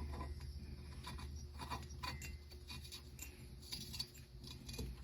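Faint light clicks and scrapes of a steel spark plug being handled and started by hand into the freshly re-tapped spark plug hole of an aluminium Shovelhead cylinder head.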